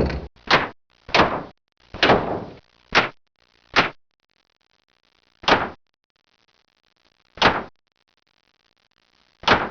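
A series of about nine door slams, each a sharp bang with a short tail. They come quickly for the first four seconds, then about two seconds apart.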